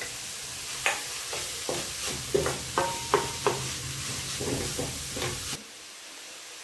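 Wooden spatula stirring and scraping chopped vegetables around a hot kadhai over a steady sizzle, in a dozen or so irregular strokes. The stirring stops suddenly about a second before the end, leaving a fainter sizzle.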